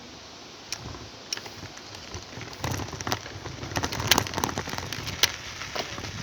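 Irregular pattering and crackling clicks over a steady hiss, growing denser and louder from about two and a half seconds in.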